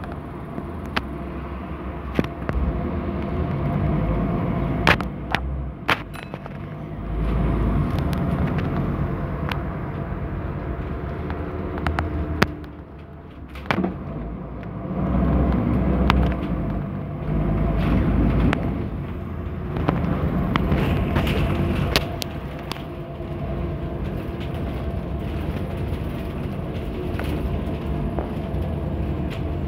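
Scania N230UD double-decker bus heard from its upper deck while on the move. The five-cylinder diesel swells and eases off several times, dipping briefly about halfway through, while the body and fittings rattle and knock sharply now and then.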